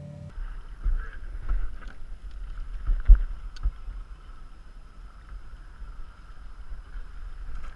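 Wind rumbling on the camera microphone aboard a small fishing boat, with a few sharp knocks, the loudest about three seconds in.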